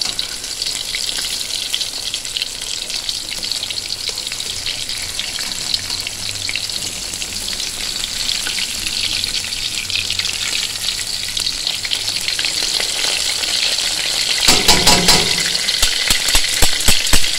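Breaded fish fillets frying in hot oil in a stainless steel pan, a steady crackling sizzle as they finish crisping. Near the end the sizzle grows louder, with sharp clicks as metal tongs lift and move the fillets.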